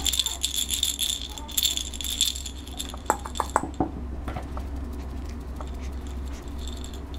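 A toy rattle in a plush chick, shaken in quick jingling bursts for about two and a half seconds, then a few short clicks, over a steady low hum.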